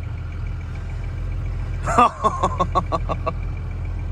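A pickup truck's engine idling with a steady low rumble. About halfway through, a voice cuts in with a quick run of short pulses, like laughter.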